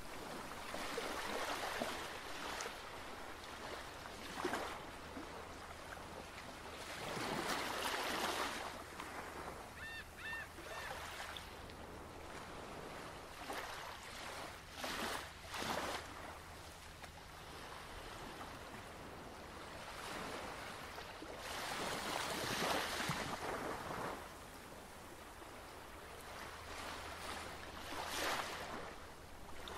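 Ocean waves washing in, rising and falling in irregular surges a few seconds apart, with a brief high chirping call about ten seconds in.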